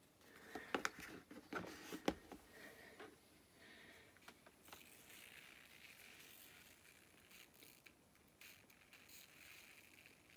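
Near silence with faint handling noise: a few small clicks and rustles in the first two seconds, then only faint scattered ticks.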